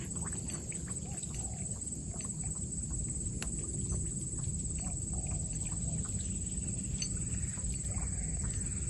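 Outdoor swamp ambience: a steady low rumble under a constant thin high whine, with faint scattered animal calls and light clicks.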